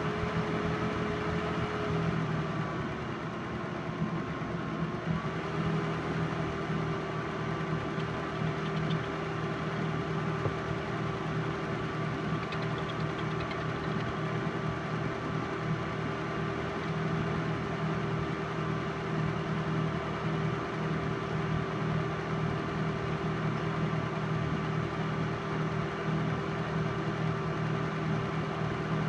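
Film projector running: a steady motor and fan hum with a held tone that sags slightly in pitch a few seconds in and then settles, over a fast low flutter from the film transport.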